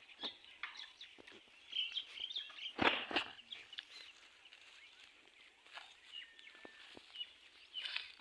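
Birds chirping, many short high calls throughout, with a brief louder clatter about three seconds in.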